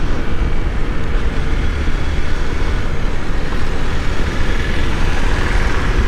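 Motorcycle running at a steady cruising speed of about 50 km/h, heard from the rider's seat with wind buffeting the microphone and road noise over it.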